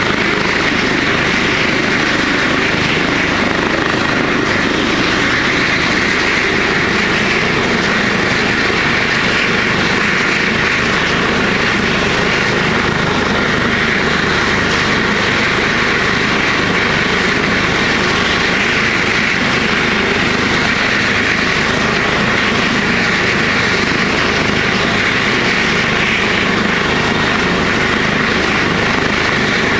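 Trauma helicopter running steadily, a continuous turbine and rotor noise with a strong whine around the middle of the range and no change in level.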